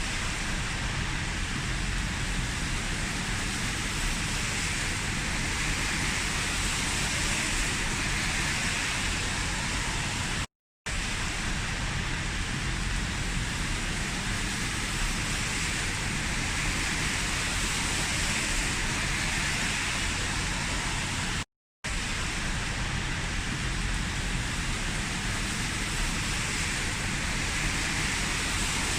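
Heavy rain falling steadily, an even dense hiss, broken twice by a split-second silent gap, about eleven and twenty-two seconds in.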